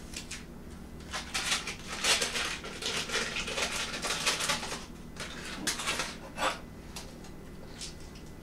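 Food preparation at a kitchen counter: irregular rustling and clattering of packaging and utensils at a plastic mixing bowl as cream cheese is added. It is busiest from about a second in until near the end.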